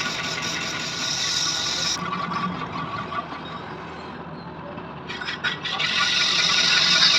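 Lathe running with a steady hum, the cutting tool scraping against the turning workpiece with a loud hiss for the first two seconds and again from about five seconds in.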